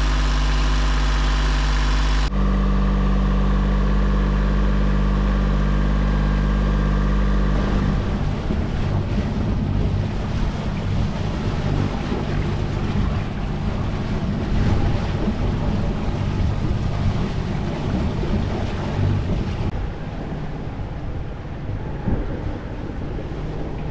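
Sailboat's inboard engine running steadily, heard up close in the engine compartment. About eight seconds in this gives way to wind on the microphone and waves rushing past the hull on open sea, with a low engine drone beneath.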